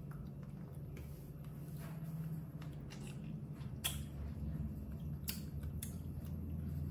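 Lollipops being sucked and chewed: faint scattered clicks of hard candy against teeth over a low steady hum.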